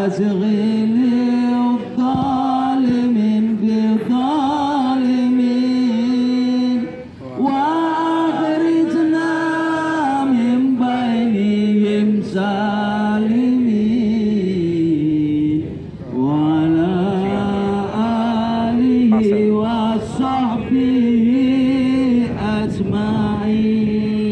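A man chanting an Arabic shalawat, a devotional song in praise of the Prophet, in long, wavering held notes, phrase after phrase with short breaths between.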